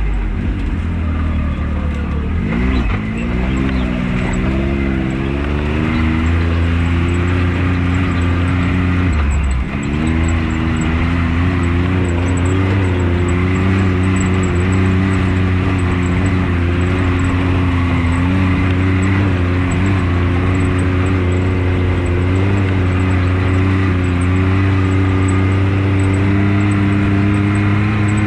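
Can-Am Maverick X3 side-by-side's engine pulling steadily under way, its pitch dipping sharply twice, about three seconds and nine seconds in, then climbing back and holding.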